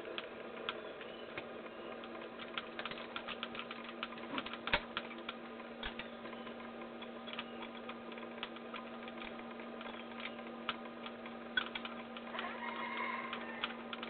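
Several camera shutters clicking, singly and in quick rapid-fire runs. A drawn-out bird call starts near the end.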